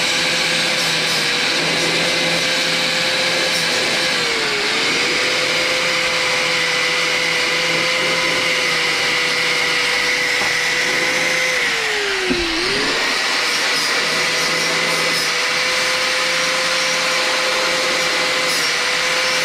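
Corded angle grinder running steadily against the van's bare steel floor, grinding rust from around a bolt hole. Its pitch sags twice as it is pressed into the metal, once briefly about four seconds in and more deeply around twelve seconds in, then picks back up.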